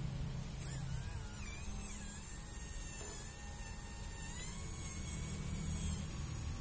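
Hobby RC servo in a one-channel RC kayak's paddling mechanism, buzzing with a faint whine that rises and falls in pitch as the transmitter drives it back and forth, over a steady low hum.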